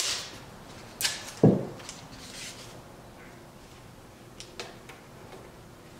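Green painter's tape being handled and pressed onto a carbon fiber spoiler winglet: a sharp tearing sound about a second in, followed at once by a low thump, then a few faint clicks and rustles.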